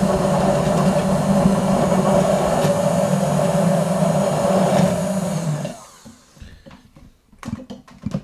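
Immersion stick blender running steadily in a tall beaker of liquid dressing, its motor hum stopping suddenly about six seconds in. A few light knocks follow near the end.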